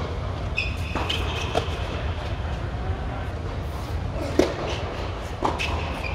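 Tennis ball being hit: a sharp racket-on-ball serve about four seconds in, a return hit about a second later and another shot near the end, with a couple of lighter ball knocks earlier. A steady low hum sits underneath.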